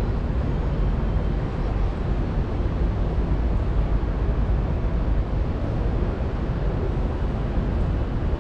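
Steady outdoor rumble with a hiss above it, with no fireworks bangs.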